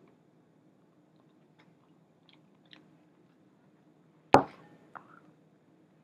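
Faint, scattered mouth clicks of someone chewing a chicken wing, then a single sharp knock about four and a half seconds in, with a smaller click just after it.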